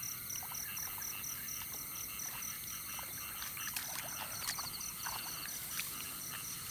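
Field insects chirping in a steady rhythm, about three to four high chirps a second, joined by a second insect's fast trill about four and a half seconds in, with scattered soft clicks and rustles.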